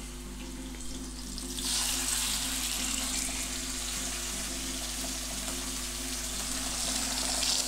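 Pieces of marinated lamb's fry (lamb's liver) sizzling in hot olive oil in a frying pan on a high gas flame; the sizzle gets louder about two seconds in as more pieces go into the pan.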